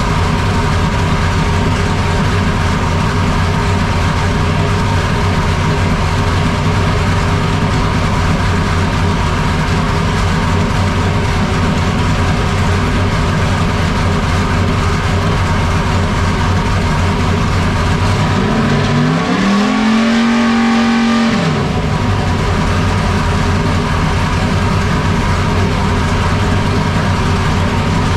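Dodge R5P7 NASCAR small-block V8 running on an engine dyno, idling steadily, then revved once about two-thirds of the way in, to around 3,500 rpm. It holds there for about two seconds and drops back to idle. The rev takes the slack out of the belt-driven camshaft so the ignition timing can be read accurately.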